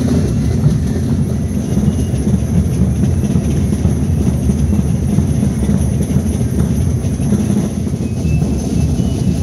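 Binche carnival drums: a big bass drum and drums beating in a steady, dense rhythm, with the jingle of the Gilles' belt bells.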